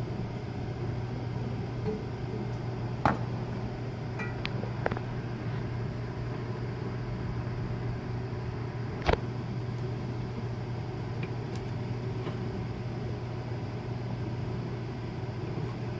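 A steady low mechanical hum, with a few sharp clicks and knocks from handling the food processor's plastic work bowl and the sliced celery in it: one about three seconds in, a couple of lighter ones near five seconds, and the loudest about nine seconds in.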